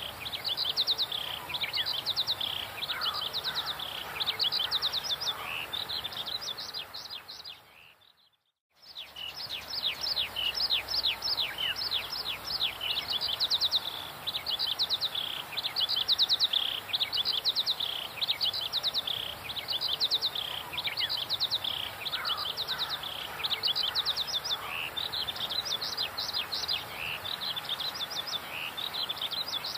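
Birds chirping: rapid runs of high, quick falling chirps repeating over and over, with fainter lower chirp runs at times. The sound fades out to silence for about a second around eight seconds in, then comes back.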